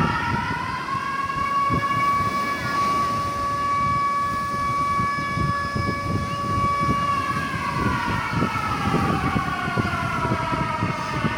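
A siren wails: one held tone for about seven seconds, then sliding down in pitch and starting to rise again near the end. Under it, the rough noise of wind and surf.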